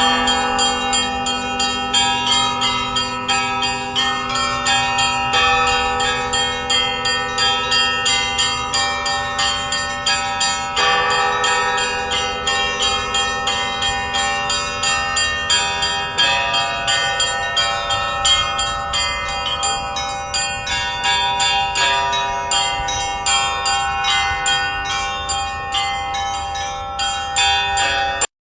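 Russian Orthodox church bells rung in a festive peal: many small bells struck in quick, dense rhythmic patterns over the sustained ringing of larger bells. The ringing drops out for an instant at the very end.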